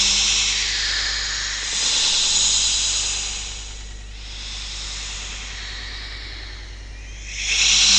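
Snake hissing in long, drawn-out breaths: a loud hiss at the start, another about two seconds in, a softer stretch, then a loud one again near the end.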